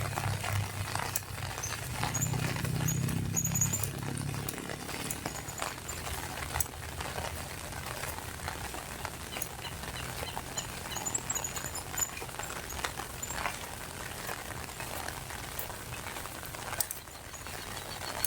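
Rain falling, with scattered drops pattering and small birds chirping high and briefly at intervals. A low hum sits under it for the first few seconds, then fades.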